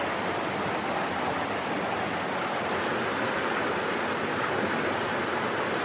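Steady rush of a shallow creek running over stones.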